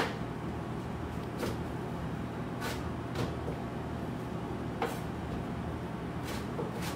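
Knife chopping the ends off ears of corn on a cutting board: one sharp knock at the start, then about five fainter knocks spaced a second or so apart, over a steady low hum.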